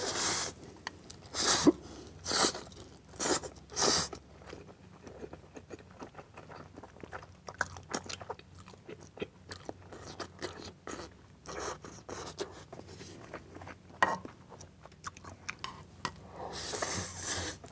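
Close-miked eating of saucy instant noodles (mixed Buldak spicy noodles and Chapagetti): a run of short, loud slurps in the first four seconds, then wet chewing with many small clicks, and a longer slurp near the end.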